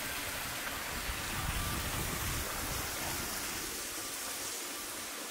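Steady rushing hiss of outdoor ambient noise, with a low rumble that swells between about one and three seconds in and dies away near the end.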